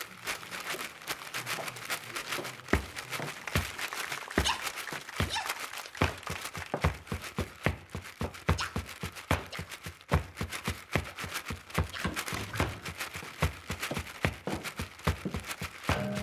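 A shoe stamping on a wooden stage floor, mixed with sharp clicks and scratchy strokes, played as rhythmic percussion. The hits are sparse at first, then about six seconds in they quicken into a dense, steady beat.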